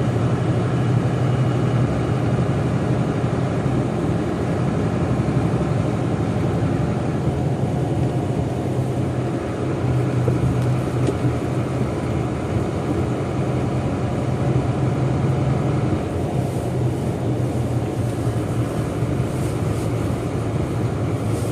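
Steady low drone of jet airliner engines, easing slightly near the end.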